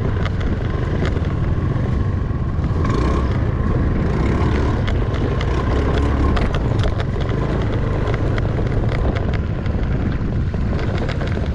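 Honda motor scooter riding slowly over a rough, rutted dirt track: the engine runs steadily under heavy wind rumble on the microphone, with frequent small knocks and rattles as the scooter goes over the bumps.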